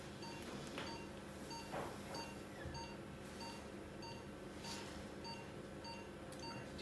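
Patient monitor's pulse-oximeter tone beeping in time with the heartbeat: short, faint beeps of one steady pitch, about one and a half a second. A few soft swishes sound between them.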